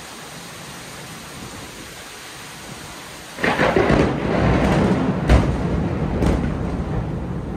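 Steady heavy rain, then about three and a half seconds in, thunder from a nearby lightning strike breaks out suddenly. It is a loud crash with several sharp cracks over the next three seconds, rolling into a rumble that slowly fades.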